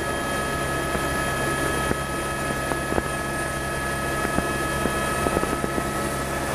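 Tour helicopter running in flight: a steady drone with several high steady whining tones and a few faint ticks.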